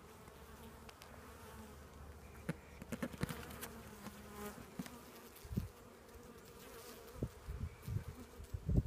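Honeybees buzzing steadily around an open hive and its lifted brood frame, with a few sharp clicks as the wooden frame is handled a few seconds in and some low thumps near the end.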